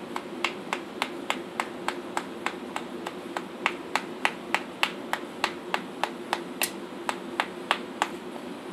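Farrier's mallet tapping a toeing knife through a draft horse's hoof wall to trim it: a steady run of sharp taps, about three to four a second.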